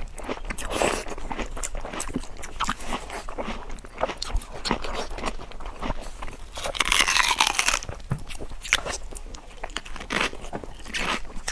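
Close-miked eating: wet biting, chewing and smacking on glossy braised meat, a run of short sharp clicks. About seven seconds in there is a longer, louder noisy stretch.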